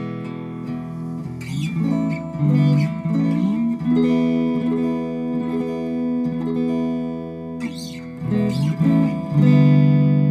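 Firefly FFLS electric guitar playing a run of strummed chords, each left to ring, with a louder chord struck near the end.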